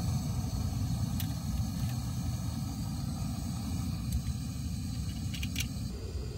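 Small screw-on camping gas stove on a gas canister burning at full flame: a steady low rush of gas and flame. A few light clicks are heard, and the tone shifts slightly near the end as a stainless steel pot is set on the burner.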